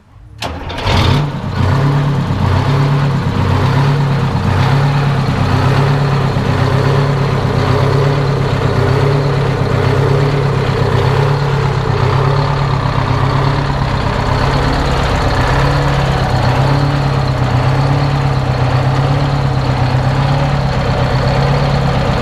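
GM 8-71 two-stroke V8 diesel in a 1958 Greyhound PD4104 bus idling steadily, heard up close at the open rear engine compartment. It cuts off suddenly at the very end.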